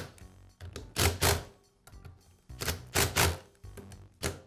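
Cordless driver spinning a socket on the pump's bolts in three short bursts, about one, three and four seconds in, slowly drawing the two halves of the pressure washer pump together.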